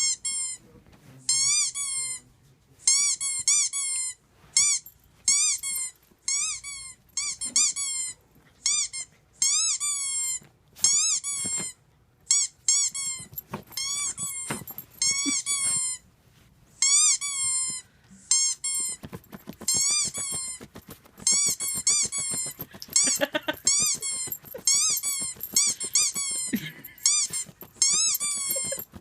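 Squeaky toy squeaked over and over in quick groups of two to four. Each squeak is a short high-pitched tone that rises and then falls, with brief pauses between the groups.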